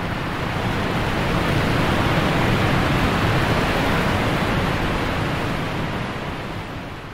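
A rushing hiss of noise with no tone or beat, swelling up and fading away near the end.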